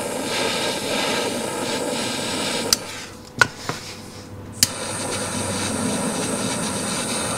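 Small handheld butane torch flame hissing steadily while heating a solder joint. About three seconds in the hiss drops away, there are a few sharp clicks, and about a second and a half later it hisses steadily again.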